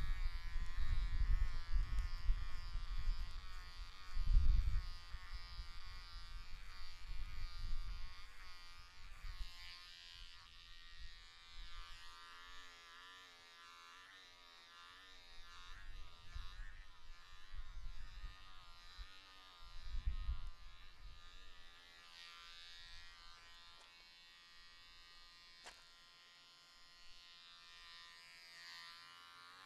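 Wahl electric hair clippers buzzing while cutting short hair, the hum wavering in pitch as the blades work through it. Low rumbling bumps come and go under it, loudest about four seconds in and again around twenty seconds, and it all turns quieter after that.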